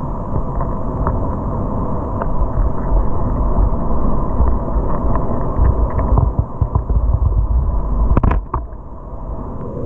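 Churning surge of rough sea water, heard through an underwater camera as a steady rumble with scattered small clicks. A sharp knock comes about eight seconds in, and the rumble is quieter for a moment afterwards.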